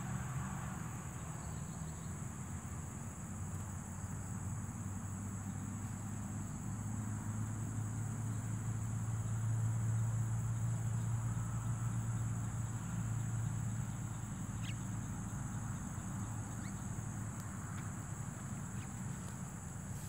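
Insects chirring in a steady, high-pitched drone, under a low rumble that swells around the middle and fades again.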